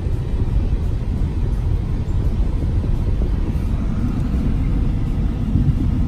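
Steady low rumble of a car driving along a road, heard from inside the cabin: tyre and wind noise.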